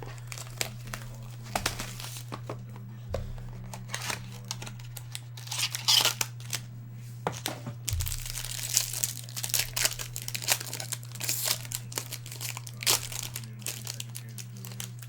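Sealed baseball card packs being torn open and handled: wrappers crinkling and tearing in irregular bursts, with cards and packaging rustling and clicking, over a steady low hum.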